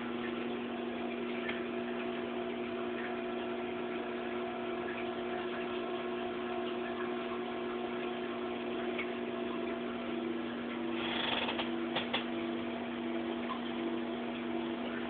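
Steady hum of aquarium equipment over a low hiss. About two-thirds in, a higher tone within the hum starts pulsing on and off about twice a second. About three-quarters through comes a brief rush and a couple of clicks.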